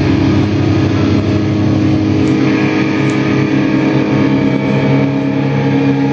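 A hardcore band playing live: loud, distorted electric guitars and bass with a fast low chug. About halfway through the low end thins out and held, ringing chords carry on.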